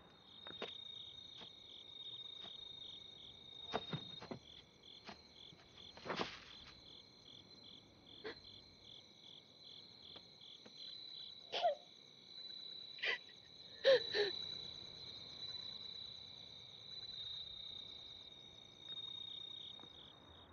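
Night insects chirping in a steady, rapidly pulsing high trill. A few short sobs or sniffs cut in now and then, the loudest about two-thirds of the way through.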